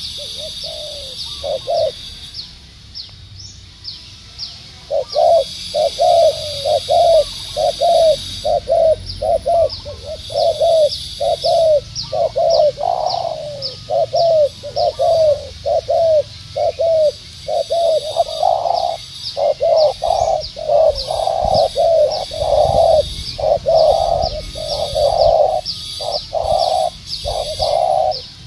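Spotted doves cooing: a run of short, low coo notes, pausing between about two and five seconds in, then going on almost without break and louder toward the end, with a high chirping behind.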